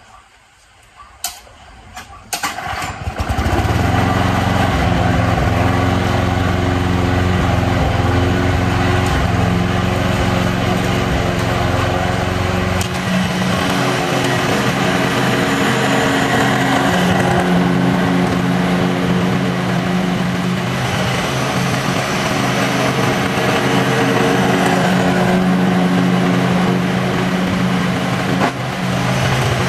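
Gas lawn mower engine starting about three seconds in, after a few clicks, then running steadily at full throttle; its tone shifts about thirteen seconds in.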